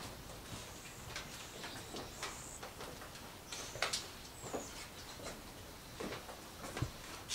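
Irregular footsteps and light knocks on wooden floorboards, with a few short, high bird chirps in the background.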